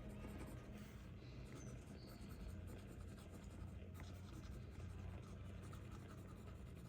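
Faint scratching of a pen on paper, writing or drawing by hand, over a low steady room hum.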